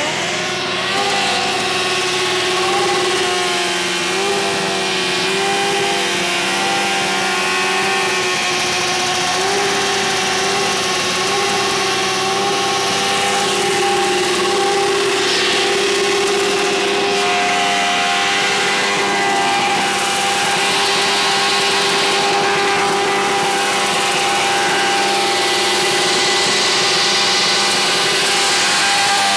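Suzuki GSX-R inline-four motorcycle engine held at steady revs for a long stretch, its pitch wavering a little over the first few seconds and then holding level. It is being run hard enough that its exhaust headers glow red-hot.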